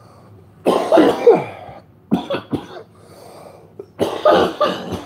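A man coughing hard from cannabis smoke. There is a long bout of coughs, then a few short ones, and another bout starts near the end.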